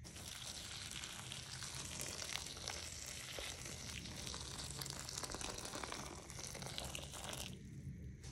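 A steady crackling, hissing pour into a container that stops suddenly near the end.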